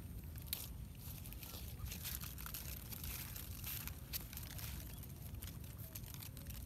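Quiet outdoor background: a steady low rumble with scattered faint clicks and rustles.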